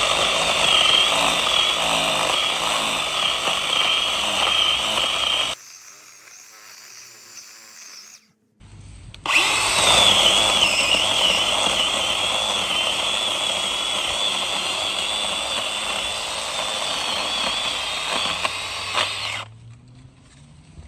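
Craftsman cordless pruning chainsaw running and cutting wood, its electric motor giving a high whine that wavers under load. It runs for about five seconds and stops, then after a pause runs again for about ten seconds.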